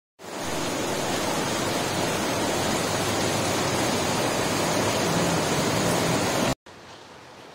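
Heavy rain pouring down in a steady, even hiss. It cuts off suddenly near the end, leaving a much fainter hiss.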